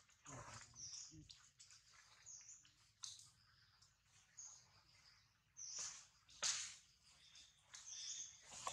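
Faint short high-pitched animal chirps, one every second or so, with a brief louder rustle about six and a half seconds in.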